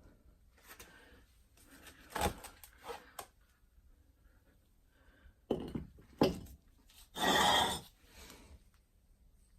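Handling noises: a few sharp knocks and clunks of objects being picked up and set down. About seven seconds in there is one loud rush of noise lasting about a second.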